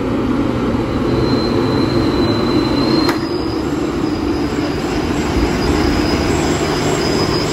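Hino box truck's diesel engine running as the truck creeps over a rough gravel road, with a high, thin squeal from its brakes. The squeal starts about a second in and steps up in pitch about halfway through.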